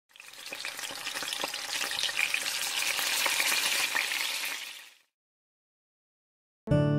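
Food sizzling and crackling as it fries in hot oil. It fades in at the start and fades out about five seconds in. Near the end, after a short silence, music starts suddenly.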